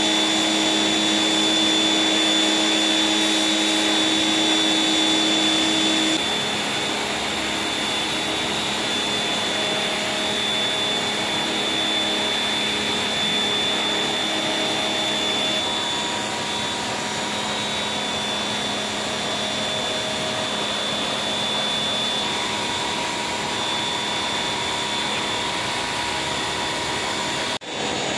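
High-pressure washer running steadily, its water jet blasting moss and grime from between the stones of a pebble floor: a continuous hiss of spray with a steady motor hum and whine. The sound dips slightly about six seconds in and breaks off briefly near the end.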